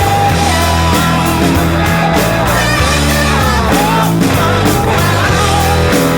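Rock music with a sung vocal, bass and guitar.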